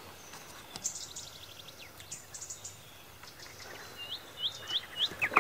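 Songbirds singing around the pond: a quick run of short descending chirps about a second in, then four rising whistled notes near the end, over a faint steady outdoor background.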